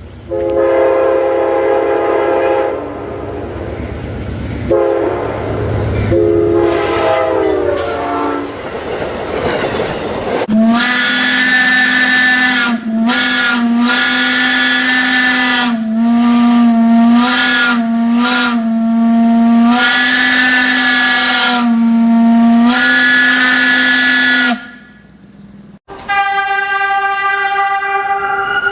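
Loud horns sounding: a multi-note chord horn blown twice, then a single deeper horn sounded in a long run of blasts with short breaks, its pitch wavering at the start of several blasts. A different, higher horn begins near the end.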